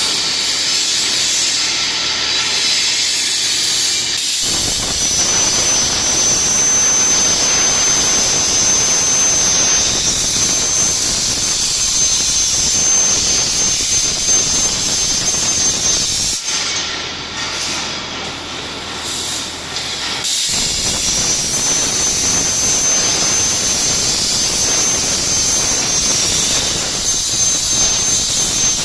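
CNC plasma torch cutting a steel beam profile: a loud steady hiss with a thin high whistle. It eases off for a few seconds about two-thirds of the way through, then resumes.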